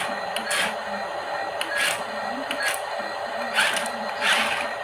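Small electric motor of an RC toy truck running steadily, broken by several short hissing bursts at irregular intervals.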